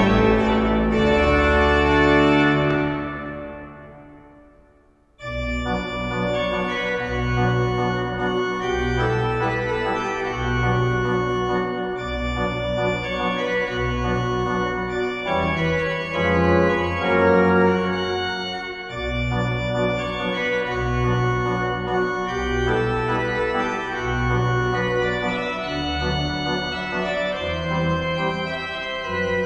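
Church organ playing sustained full chords over a deep bass line. About three seconds in a chord dies away into the church's reverberation, then the organ starts again loudly and plays on.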